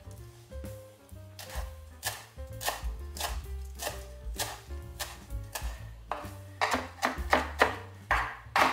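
Chef's knife chopping fresh parsley on a wooden cutting board: sharp knocks about two a second, quickening to about four a second from about six seconds in. Background music underneath.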